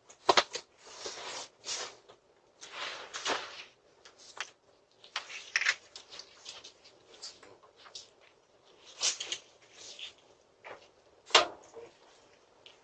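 Scattered rustles, clicks and knocks, irregular and uneven in loudness, with a sharp knock about eleven seconds in, picked up by a doorbell camera's microphone.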